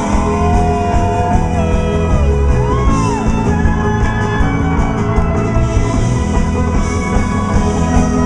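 Rock band playing live in a concert hall: an instrumental passage of electric guitars over drums with steadily ticking cymbals, and a few long sliding high notes in the first three seconds.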